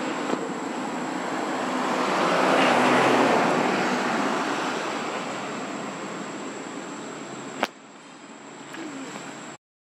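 Rushing outdoor background noise that swells to a peak about three seconds in and then fades, broken by a single sharp click near the end.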